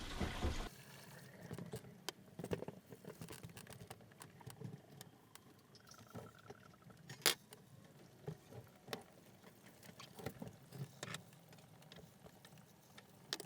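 Sockets and other small metal hand tools being handled: scattered light clicks and clinks, with one sharper click about seven seconds in.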